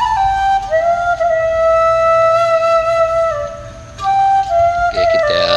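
Background music: a slow flute melody of long held notes stepping from pitch to pitch.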